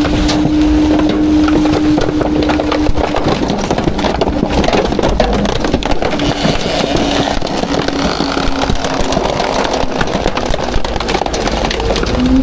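Autocar/Heil Half/Pack garbage truck's packer compacting trash: bags, foam and plastic crunch and crackle as they are crushed. A steady whine from the running truck sounds under it, dropping away about three seconds in and returning only in snatches.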